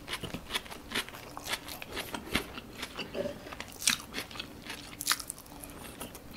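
Close-miked chewing of a mouthful of homemade burger with raw sliced onion: irregular wet crunches and mouth clicks, several a second.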